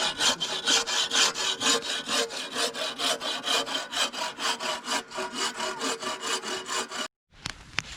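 Hand saw cutting through firewood in quick, even back-and-forth strokes. It stops abruptly about seven seconds in, followed by a few faint scattered pops.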